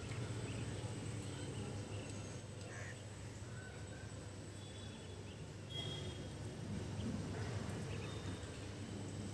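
Outdoor ambience: a steady low hum with a few faint, short bird chirps, one about a second and a half in and another near six seconds.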